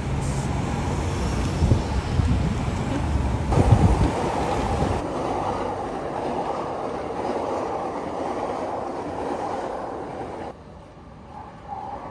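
Electric commuter train running on the tracks below a footbridge: a steady rail rumble that falls away sharply near the end. It is preceded by a few seconds of low-pitched street or wind rumble.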